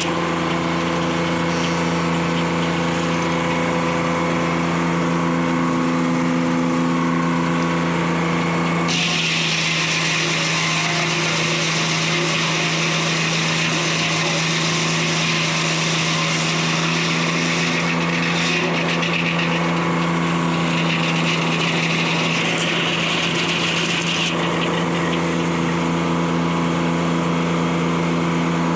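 Detroit Diesel 3-71 two-stroke diesel power unit running steadily, driving a 52-inch circular sawmill blade. From about nine seconds to about twenty-four seconds a harsher hiss rises over the steady drone, then drops away suddenly.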